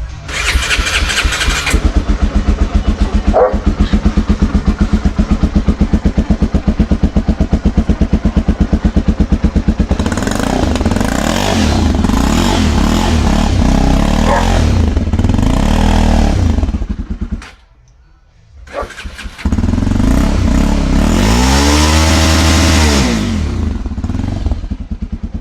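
Honda CBX 250 Twister single-cylinder engine with its exhaust tip cut off: it is started, then idles with a loud, pulsing exhaust note. About ten seconds in it is revved up and down repeatedly. The sound drops away for about a second and a half, then comes more hard revving, rising and falling in pitch, aimed at the rev limiter.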